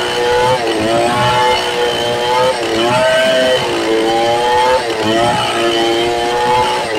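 Stihl 070 two-stroke chainsaw running at full throttle while rip-cutting lengthwise along a red meranti log. Its engine pitch dips under load and recovers about every two seconds.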